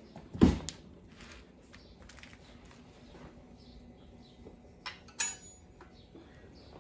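Kitchen handling sounds: a single heavy knock about half a second in, then two sharp clinks of utensils or dishware around five seconds in.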